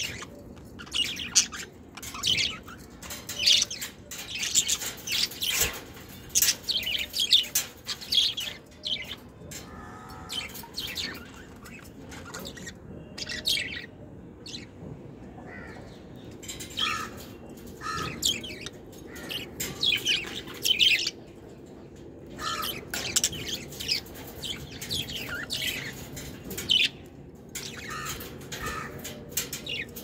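Budgerigars chirping at close range: many short, high chirps in quick irregular runs, thinning out for a few seconds in the middle before picking up again.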